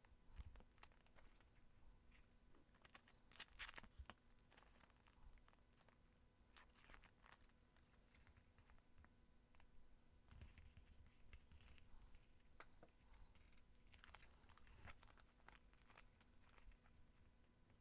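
Faint rustling and crinkling of paper as small cut-out pieces are handled and pressed onto a journal page, with a louder crinkle about three and a half seconds in.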